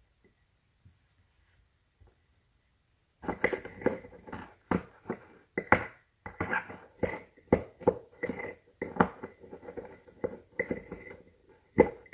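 A fork stirring and scraping a butter, brown sugar and cinnamon mixture in a glass custard cup: quick repeated scrapes and clinks, about two a second, starting about three seconds in.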